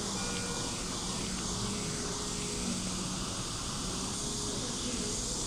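Steady machine hiss with a faint low hum, the background noise of neonatal hospital equipment around a premature baby on a nasal breathing tube.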